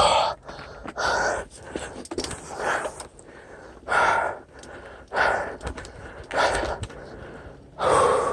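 Mountain biker's heavy, laboured breathing from hard exertion, a loud breath about every second and a half.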